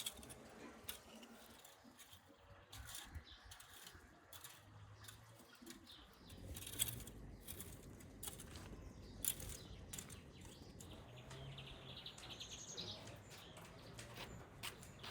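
Scattered light clicks and knocks at irregular intervals, with birds chirping faintly.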